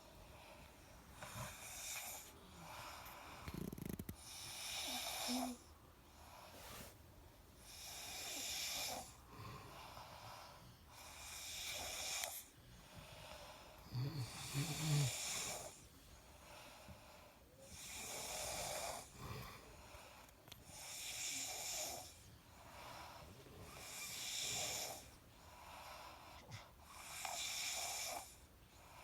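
Sleeping people snoring: wheezy, hissing breaths come every two seconds or so, with a louder, lower rattling snore about fourteen seconds in.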